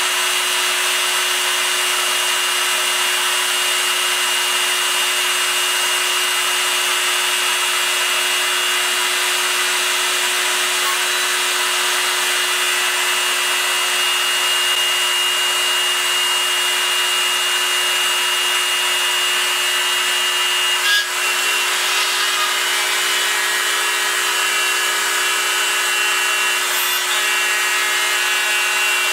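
CNC-converted Proxxon MF 70 mini milling machine cutting aluminium plate: the spindle runs with a steady high whine over the scraping hiss of the end mill in the metal. A short click comes about two-thirds of the way through, after which the pitch of the whine shifts slightly.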